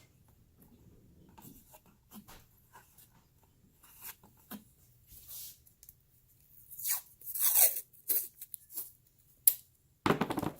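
Painter's tape being pulled off the roll and torn into short strips, a series of scattered rips with the longest and loudest a little past the middle, among light handling noises. A bump near the end.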